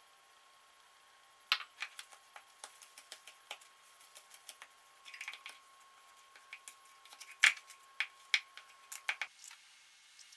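Thin plastic cup handled while powdered sugar and egg white are kneaded into a paste inside it: irregular sharp clicks and crinkles of the plastic, the loudest about seven and a half seconds in.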